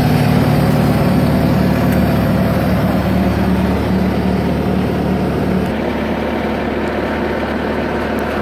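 Bobcat S300 skid-steer loader's diesel engine idling steadily with a low hum. About two-thirds of the way in, part of the hum drops away and it gets slightly quieter.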